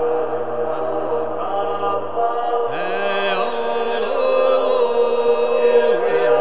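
Sámi yoik: a low voice chanting in stepped pitches over a steady held drone. A brighter sound sweeps upward and joins about three seconds in.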